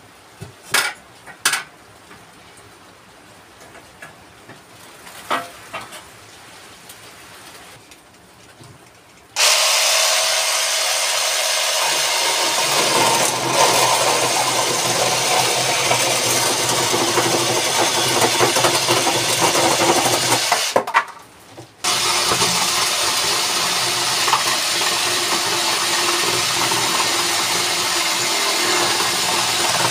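A few light knocks, then a cordless reciprocating saw cutting through a wooden board, starting abruptly about a third of the way in. It stops for about a second, then cuts on.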